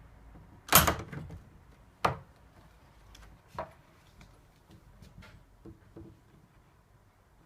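Letterbox tool knocking and clattering against the door as its lever flipper attachment works at the inside lever handle: two loud sharp knocks in the first two seconds, then a smaller knock and a few faint ticks and taps.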